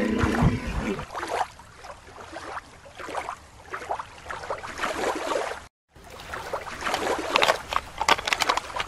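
Light splashing and lapping of shallow water, with small irregular clicks and spatters. The sound cuts out briefly about halfway through.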